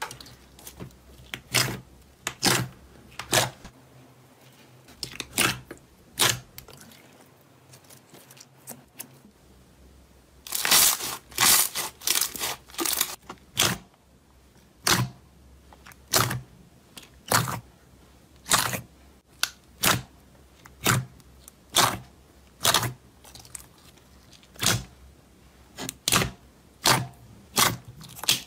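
Hands pressing and squeezing thick glossy slime in a plastic tub, giving short sharp wet crackles and pops about once a second, with a quick run of them about halfway through.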